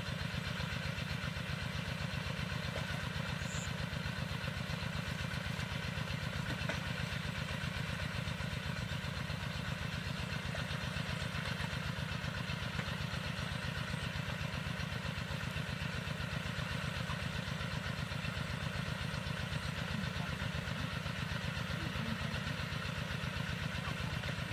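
A small engine running steadily at an even idle, with a fast regular beat that does not change.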